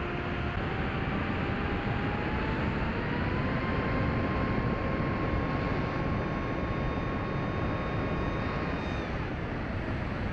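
Onboard sound of an FPV plane's Brotherhobby Avenger 2808 brushless motor and 8-inch propeller at speed, over steady wind rush. The motor whine rises in pitch over the first few seconds, holds steady, then drops away near the end as the throttle comes off.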